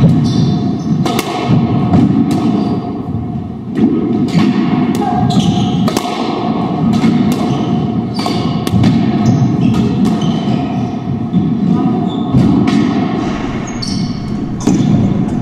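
A squash doubles rally: the ball cracking off racquets and the court walls in quick, irregular hits, roughly one or two a second.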